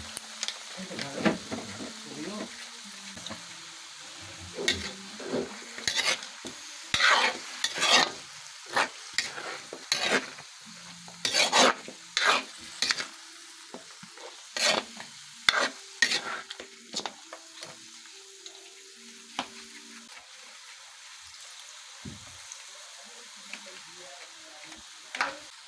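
Chicken frying and sizzling in a pan while a utensil stirs it, with a steady hiss and repeated short scraping strokes against the pan. The strokes come thick and fast through most of the stretch and thin out near the end.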